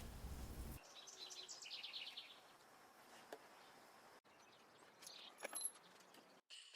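Near silence, with a faint, rapid high bird twitter about a second in and a few faint clicks later on.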